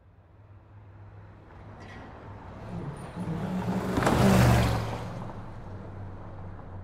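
A box truck drives past close by. Its engine and tyre noise build to a peak about four seconds in, then fade as it pulls away, leaving a low steady traffic hum.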